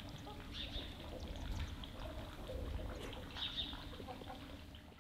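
Outdoor ambience: birds chirping briefly twice over a steady low rumble, with a few faint clinks of a fork against a metal plate.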